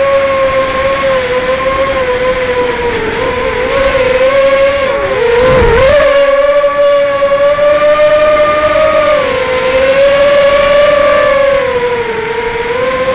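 Brushless motors of an Emax 250 racing quadcopter (Sunnysky 2204 2300kv motors on 3S with 5040 props), heard from the onboard camera, whining at a steady pitch that shifts with throttle. About five seconds in the pitch dips and wavers, with a short burst of low wind rumble, then climbs back higher and a little louder.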